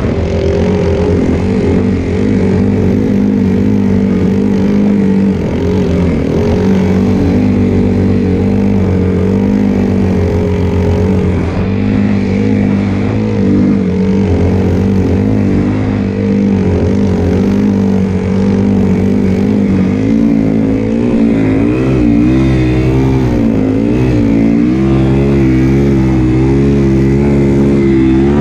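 Yamaha WR450F snowbike's single-cylinder four-stroke engine running at fairly steady revs, then from about twenty seconds in the revs rise and fall again and again.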